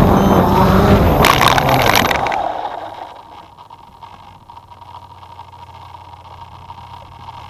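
Small drone's propellers whirring with a burst of clattering, then cutting out about two seconds in, leaving only a faint low hum.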